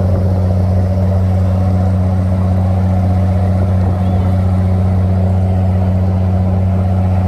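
Boat engine running at a steady speed, a loud, even drone.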